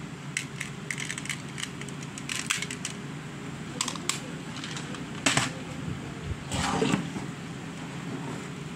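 Glass marbles clicking against each other and against a small plastic box as it is handled, with a sharper knock about five seconds in and a short rattle near seven seconds.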